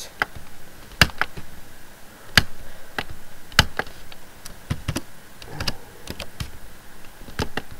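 Irregular single clicks of a computer keyboard and mouse as values are typed into fields, with a few louder clicks among them.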